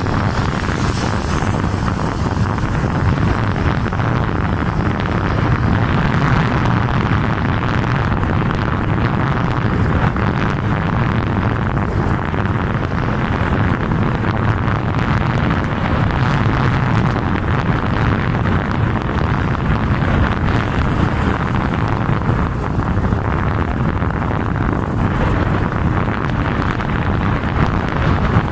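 Steady rush of wind on the microphone mixed with road and engine noise from a vehicle travelling at speed.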